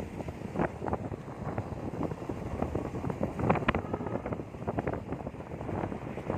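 Wind buffeting the microphone: a continuous low rumble broken by irregular crackles and thumps.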